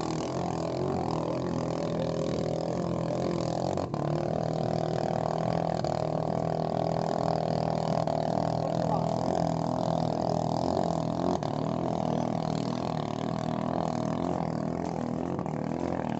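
Small racing boat's engine running at speed across the water, a steady drone that holds its pitch.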